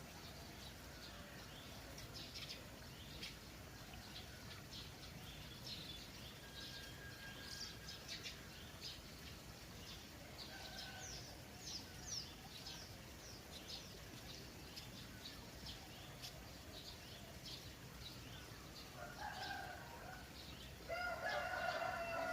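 Many small birds chirping over a steady low hiss of trickling water, with a rooster crowing near the end, the loudest sound.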